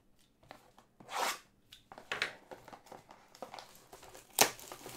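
Packaging crinkling and tearing as a Panini Prizm Choice trading card box is opened by hand: irregular rustles, with a louder rip about a second in and another near the end.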